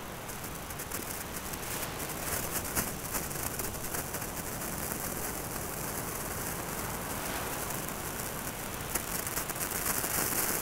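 A hand-held sparkler fizzing and crackling: a dense, fine spitting that grows louder about two seconds in and again near the end.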